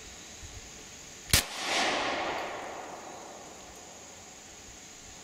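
A single shot from a Glock 43 9mm subcompact pistol about a second and a half in, followed by a long echo that rolls away over the next two seconds.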